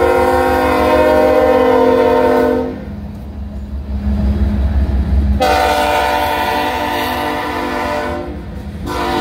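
BNSF diesel freight locomotive's air horn blowing for a grade crossing: a long blast, a gap of about two and a half seconds, a second long blast, then the start of a short one near the end, over the low rumble of the passing train.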